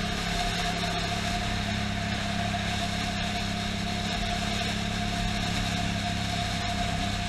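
Yamaha FZ-07's parallel-twin engine running at a steady speed, holding one pitch throughout.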